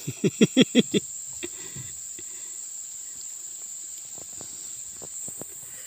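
A steady, high-pitched insect drone, with a man's voice trailing off in the first second and a few faint knocks later on.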